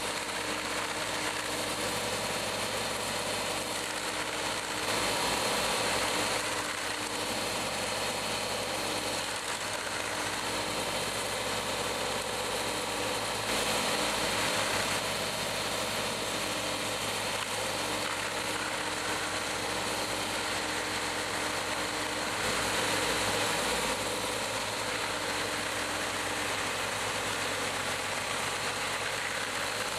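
Stump grinder attachment's 110 hp Deutz engine running under load as its 32-inch cutting disc grinds a tree stump, swelling louder for a second or two three times, about every nine seconds.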